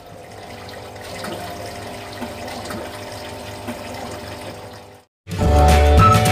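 Aquarium water running and bubbling from the tank's filter. After about five seconds it cuts off, and loud intro music starts.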